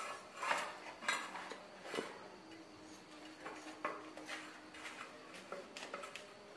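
A knife clicking and scraping against a ceramic plate as a pack of plastic-wrapped sausages is cut open, in light irregular knocks.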